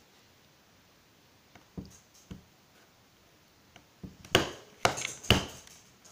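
A few faint clicks, then three loud sharp clacks about half a second apart, from a desk stapler being pressed into a stack of paper sheets.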